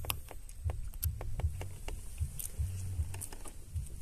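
A fishing kayak moving on calm water: irregular low thumps knocking through the hull, about two a second, with small water splashes and sharp clicks.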